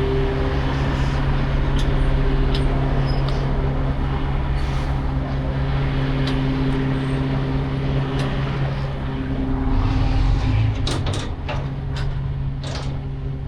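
A truck engine idling steadily with a low, even hum. Scattered short clicks and knocks sound over it, several close together near the end.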